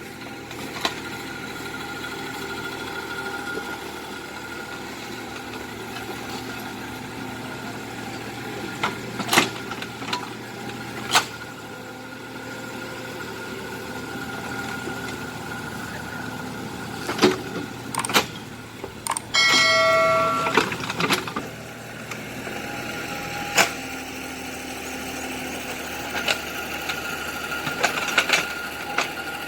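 Small Kubota excavator running steadily, with sharp knocks now and then. About two-thirds of the way through a loud pitched tone sounds for about a second and a half.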